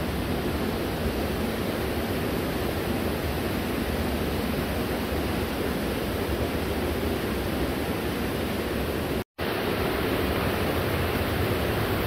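Waterfall splashing down into a canyon pool, a steady rush of water; its flow is low because a hydroelectric plant upstream is drawing off the water. A split-second break in the sound comes about nine seconds in.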